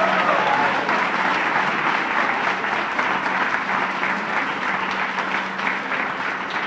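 Audience applauding: dense, even clapping from a roomful of people.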